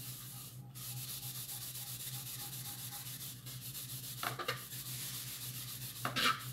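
Steel wool pad scrubbing a metal pot lid, with rapid scratchy back-and-forth strokes and two louder strokes about four and six seconds in.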